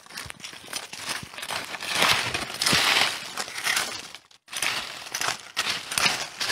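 Digging by hand through dry leaf litter and stony soil: dry leaves crunching and crackling, with small stones scraping and clicking, loudest a couple of seconds in.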